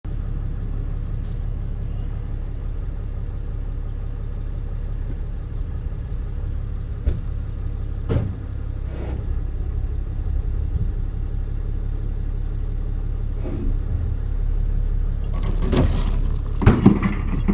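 Excavator engine running steadily with a low rumble. A few single knocks come through it, then a burst of clanking and rattling near the end.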